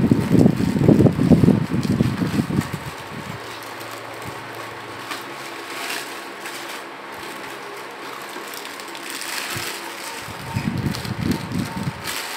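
Packaging being handled: a boxed device in a plastic bag is lifted out of its foam insert, with plastic crinkling and rustling and knocks and rubbing against the box. The knocks and rubbing are loudest at the start and again near the end, with a faint steady hum underneath.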